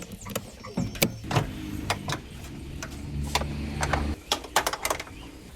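Workshop clatter: a string of sharp metal clicks and knocks from tools and parts being handled, with a steady low hum for about two seconds in the middle.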